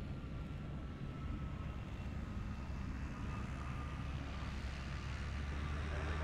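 MiG-17 jet fighter's turbojet engine running as the jet rolls along the runway: a steady low rumble with a thin whine that slowly falls in pitch, growing gradually louder.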